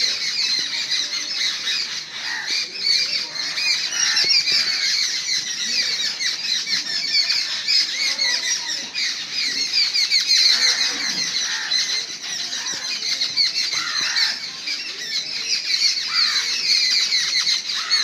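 A flock of crows mobbing a perched owl, squawking and cawing harshly and without pause in a dense, chattering din.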